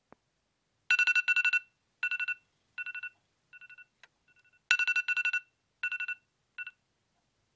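Electronic alarm beeping in quick trains of short, evenly pitched beeps, repeated in groups that come and go in loudness.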